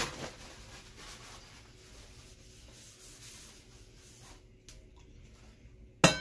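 Faint rubbing and room noise, with a short knock at the start; near the end a sharp clank with a brief metallic ring as a wok is set down on the glass-ceramic cooktop.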